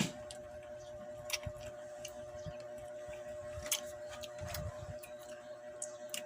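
Eating sounds of someone chewing mango: scattered soft clicks and smacks, a few of them louder, over a faint steady hum.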